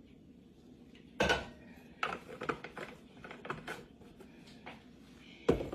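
Kitchen dishes and utensils knocking and clinking as a measuring dish and mixing bowl are handled: a sharp knock about a second in, scattered lighter clinks, and another knock near the end.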